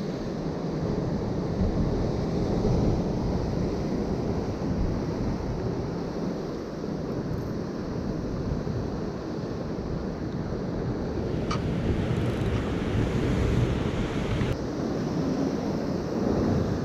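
Rough sea surging and breaking against shore rocks, with wind buffeting the microphone.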